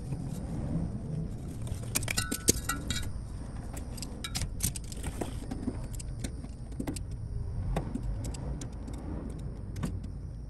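Small metallic clicks, clinks and rattles of hand work on the fuel pump's hoses and clamps under a mini truck, with a quick flurry of clinks about two seconds in, over a steady low rumble.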